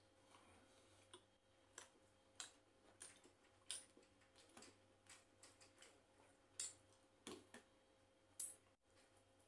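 Faint, irregular clicks and smacks of someone chewing and eating by hand, a soft sound every half second or so over near silence.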